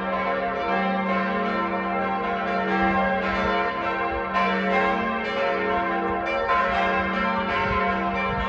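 Large bells pealing, strike after strike overlapping into a continuous ring with a deep sustained hum beneath.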